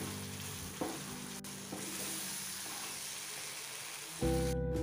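Masala paste sizzling in hot oil in a frying pan as it is stirred in with a spatula, with a brief knock or two of the spatula early on. Near the end the sizzle stops and background music comes up.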